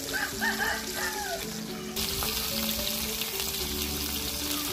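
Food frying in hot oil: a steady sizzle that grows brighter about two seconds in, with background music under it.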